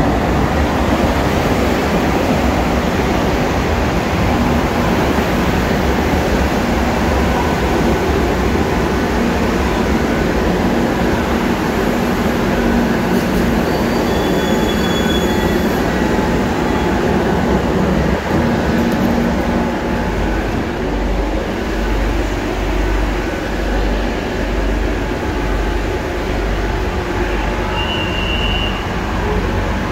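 Madrid Metro Line 5 train pulling into an underground station and standing at the platform, its running noise steady and loud, with short high beeps in the middle and again near the end. From about twenty seconds in, a deeper low hum from inside the car takes over.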